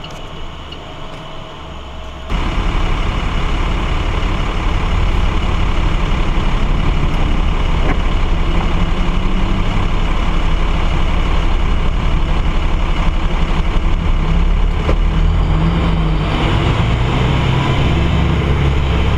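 Car cabin noise picked up by a dashcam's microphone: a steady low rumble with a hiss over it, which jumps abruptly louder about two seconds in and then stays even.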